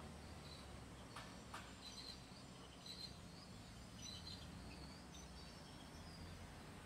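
Near silence: faint outdoor ambience with a low hum and scattered faint high chirps, and two soft clicks about a second in.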